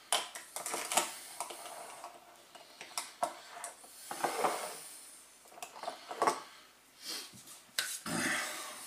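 Scattered light clicks, taps and short rattles of seasoning jars and a pepper grinder being opened, shaken and set down on a kitchen worktop.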